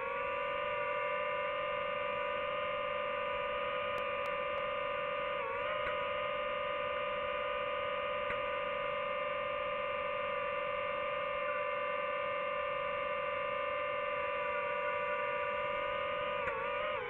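DJI FPV drone's motors and propellers whining at a steady pitch under steady throttle, with brief wavers in pitch about five and a half seconds in and again near the end.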